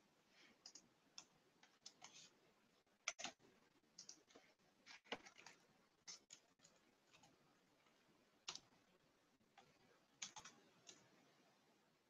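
Near silence broken by faint, irregular clicks and taps of a computer mouse and keyboard in use, about a dozen spread over twelve seconds.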